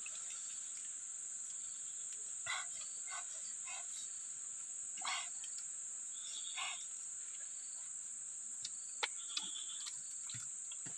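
Steady high-pitched insect chorus of the swamp forest, with a handful of short animal calls in the first half and a couple of sharp clicks near the end.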